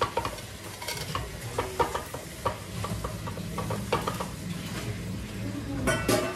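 Light metal clicks and clinks of a brass lever-type idiyappam press being worked and small utensils handled, scattered irregularly over a steady low hum, with a brief denser clatter near the end.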